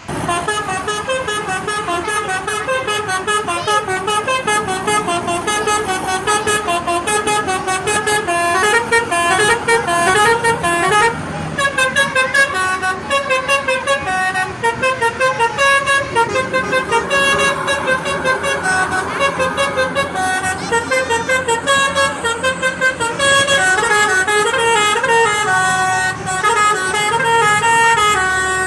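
A bus's telolet musical air horn playing a fast tune: loud pitched notes stepping up and down several times a second, starting suddenly.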